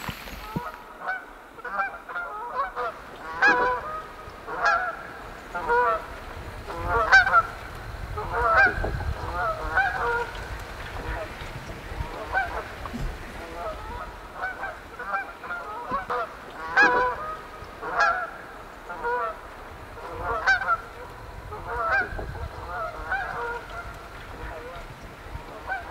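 A flock of geese honking, many short calls repeated irregularly and overlapping.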